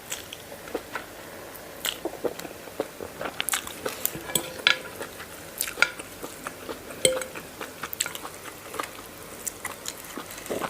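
Cutlery clinking and scraping on a plate at irregular intervals while a spicy noodle salad is eaten, mixed with crunchy bites and chewing.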